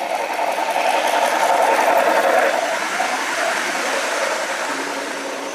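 Garden-scale model train running past close by: a steady whirr of its motor and wheels on the track that grows louder to a peak about two seconds in, then eases off as the coaches roll by.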